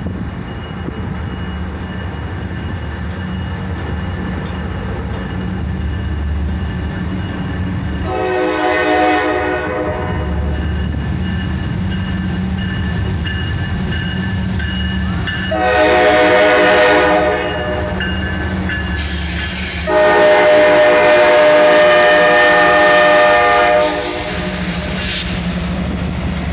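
An approaching freight train's lead GE ES44AH locomotive sounds its air horn for a grade crossing over the steady low rumble of its diesel engines. A blast fades out at the start, short blasts come about 8 and 16 seconds in, and the last, longest and loudest, runs from about 20 to 24 seconds in.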